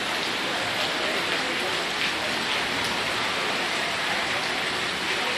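Steady rushing hiss of water on a flooded street.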